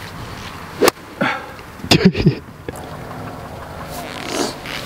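Golf irons striking balls off fairway grass on short chip shots: a sharp click about a second in and another at the very end, with a shorter click near two seconds.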